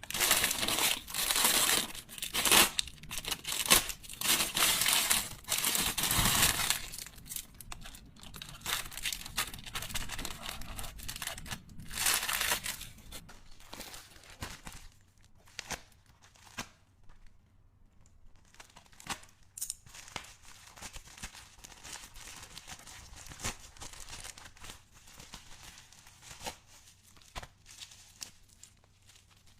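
Packaging being torn open and crinkled by hand. It is loud and dense for the first several seconds, with another loud rip about twelve seconds in, then settles into quieter rustling and light clicks as items are handled.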